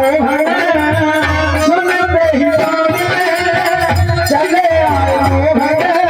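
Music: a wavering melody, likely sung, over a steady drum beat.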